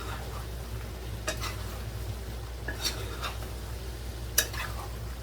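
A spoon stirring guinea fowl stewing in cassareep in a pot, clacking against the pot three times about a second and a half apart, over the faint sizzle of the pot and a steady low hum.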